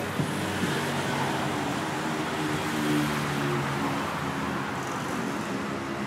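City street traffic: a motor vehicle's engine running close by over a steady hum of traffic, swelling a little about three seconds in.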